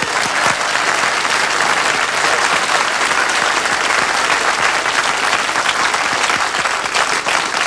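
Studio audience applauding steadily, a dense clatter of many hands clapping.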